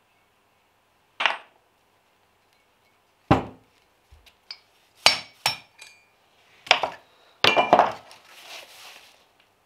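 1999 Honda Civic brake calipers and their small metal parts handled and set down on a cloth-covered bench: a series of about seven separate knocks and light metallic clinks, some ringing briefly, then a soft rustle near the end.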